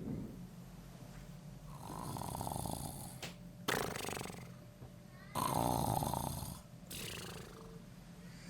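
A person snoring while asleep: two drawn-out buzzing snores, the second louder, each followed by a short sharp breath.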